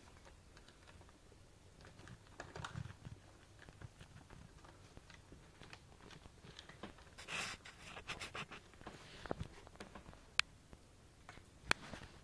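Kittens playing on a hard floor around a plastic bag: faint, scattered light taps, clicks and rustles, with a louder rustling burst about seven seconds in and two sharp clicks near the end.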